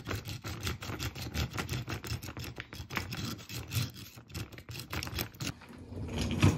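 A metal hex key turning the axle bolt of a suitcase's plastic twin-wheel caster: a rapid, irregular run of scraping clicks as the key works and rattles against the caster, with a louder thump near the end.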